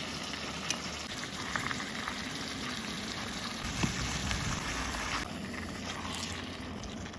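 Sliced zucchini stir-frying in juicy tomatoes in a pot, sizzling and bubbling steadily, with a few light clicks. The sizzle softens a little after about five seconds.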